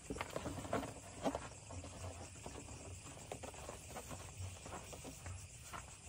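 Light, irregular footsteps on hard ground with small knocks and rustles of camping gear being handled, loudest in the first second and a half.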